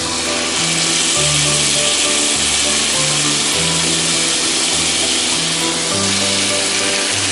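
Marinated chicken legs sizzling as they are laid into hot butter and oil in a pan; the sizzle swells just after the start as the first leg goes in and holds steady. Background music with a bass line plays along.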